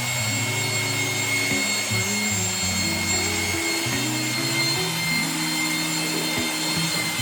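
Background music of held low notes changing in steps, over a steady hiss with a faint high whine.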